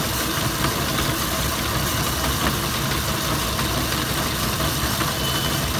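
Ice-shaving machine running steadily, its blade shaving a block of ice into a bowl with a constant grinding hiss.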